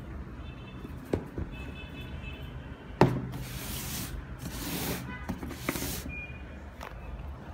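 A sneaker and its cardboard shoebox being handled: a light click, then a sharp knock about three seconds in, followed by several bursts of rustling, over a steady low background rumble.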